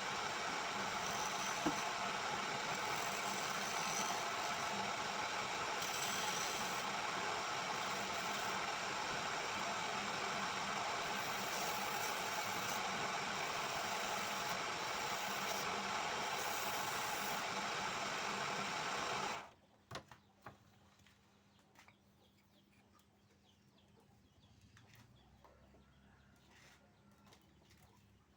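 A woodworking power tool runs steadily with an even rushing noise and a faint hum, then cuts off suddenly about two-thirds of the way in. After that it is quiet apart from a few light taps.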